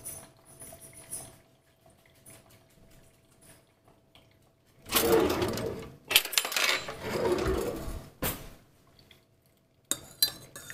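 A wooden kitchen drawer being pulled open and metal utensils rattling inside it as a spoon is taken out, in two noisy stretches from about halfway in. Near the end a metal spoon clinks against a ceramic coffee mug as it goes in to stir.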